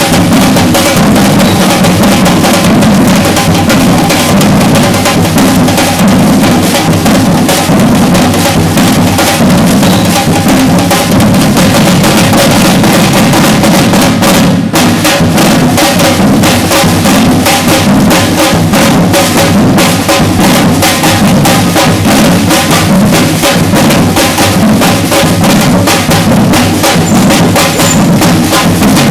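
Batucada percussion group drumming at full volume: deep surdo bass drums under snare drums in a dense, continuous rhythm.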